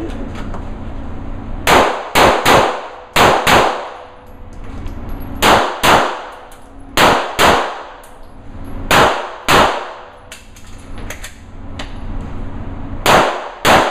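Pistol shots fired mostly in quick pairs, about thirteen in all, each one sharp and ringing in the echo of an indoor range, with short pauses between the pairs.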